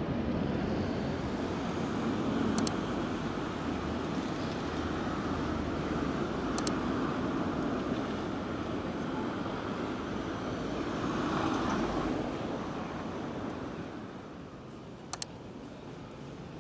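Steady rush of wind and road noise from a bicycle ride along a city street. It swells about twelve seconds in and then quietens. Three short, sharp double clicks cut through it.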